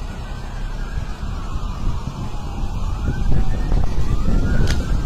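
Wind buffeting the microphone with a heavy rumble, while a faint siren wails slowly up and down. A sharp click comes near the end.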